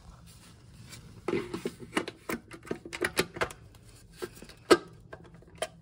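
Hard plastic clicking and knocking as a Hive receiver is pushed and snapped onto its wall-mounted backplate: a quick irregular run of taps starting about a second in, with one louder click about three-quarters of the way through.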